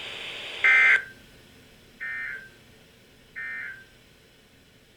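NOAA Weather Radio EAS end-of-message signal: three short warbling SAME digital data bursts, a little over a second apart, marking the end of the alert. The first burst is the loudest, and the radio hiss underneath cuts off with it.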